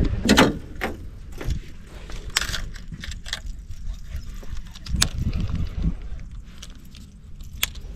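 Irregular small clicks and light rattles of fishing tackle being handled as a baitcasting rod and reel work a lure back, over a low rumble.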